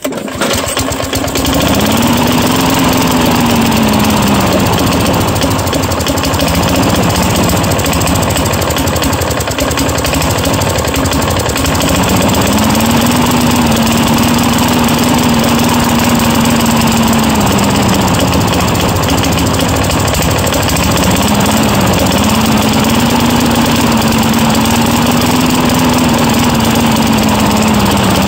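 Craftsman mower's 4.5 hp Tecumseh single-cylinder four-stroke engine catches on a pull of the recoil cord and runs, its speed surging up and down: it rises, holds, then sags, three times over. The hunting speed fits a lean-running engine, which the owner blames for it not staying running.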